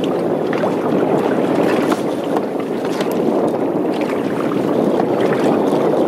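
Small water chop lapping and slapping against the fiberglass hull of a drifting skiff: a steady splashing wash with a few small sharp slaps now and then.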